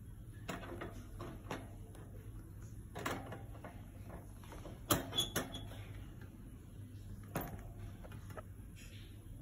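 Scattered light clicks and rattles from a wire hamster cage, the loudest a quick run of three knocks about halfway through.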